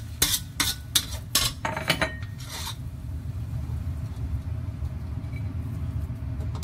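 Metal spatula scraping and clanking against a steel wok as the cooked vegetable-and-glass-noodle filling is tossed and lifted, a quick run of strokes over the first two to three seconds. After that only a steady low hum remains, with one more loud scrape right at the end.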